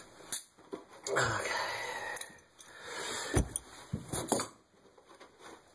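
A person's breath rushing out about a second in, and a few short knocks.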